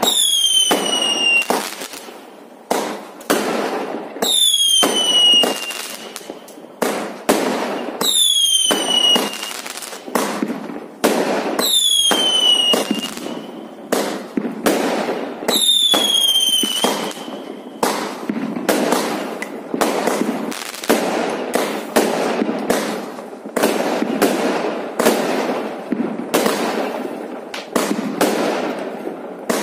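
Fireworks going off in quick succession: a steady run of sharp bangs from shells launching and bursting. Over the first half a whistle rises above the bangs about every four seconds, each one falling in pitch for a second or so. After that the bangs come thicker and closer together.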